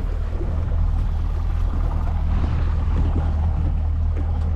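Boat engine running steadily, a constant low drone under a hiss of wind and water.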